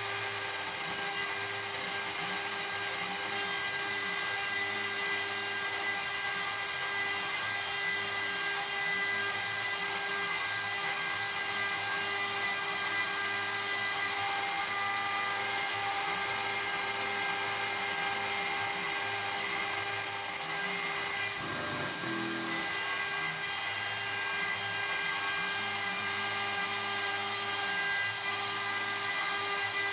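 CNC router spindle running at high speed as it cuts into acrylic sheet, a steady high-pitched whine over the hiss of cutting, with the lower hum of the drive motors rising and falling as the gantry moves. The high cutting noise drops out briefly about two-thirds of the way through, then resumes.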